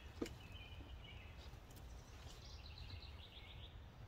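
Faint outdoor background of a songbird: a few chirps, then a quick descending trill of repeated notes over a low steady rumble. One knock sounds just after the start as gear is handled in the van's cargo boxes.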